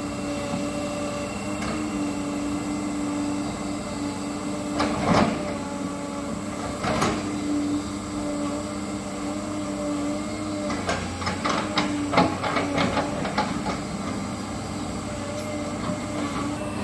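Caterpillar 320D hydraulic excavator running with a steady, even hum. Single clanks come about five and seven seconds in, then a quick run of clanks and knocks a little past the middle.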